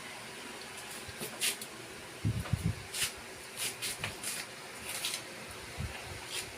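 Handling noise: scattered light clicks and rustles with a few dull low bumps, over a faint steady hiss.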